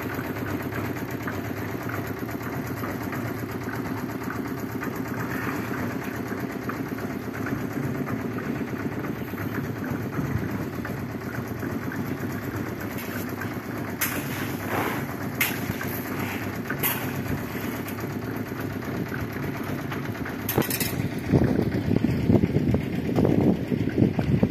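An engine running steadily, with a few short sharp clicks in the middle. Near the end, wind buffets the microphone.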